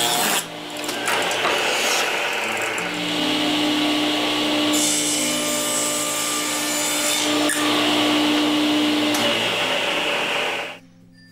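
Table saw running and ripping an oak board into thin strips, with a steady whine and the noise of the blade in the wood. The sound cuts off suddenly near the end.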